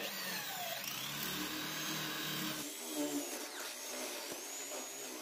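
Electric hand drill boring a 1-inch hole through two stacked pieces of laminate-faced plywood: the motor's whine and the bit's cutting noise start abruptly, wavering in pitch as the load on the bit changes.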